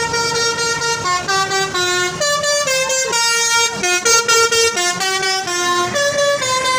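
Basuri telolet horn on a tour bus playing a tune: one held note for about a second, then a quick run of short stepped notes.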